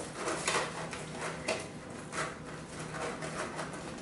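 Disposable aluminium foil pie pan and its clear plastic lid crinkling and clicking as they are handled, in a string of short, irregular rustles.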